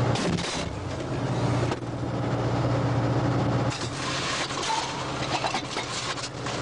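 The T-72B tank's diesel engine running as a steady low hum, heard inside the hull. The hum cuts out abruptly twice, and in those stretches there is loud hiss with clattering metallic knocks and clicks.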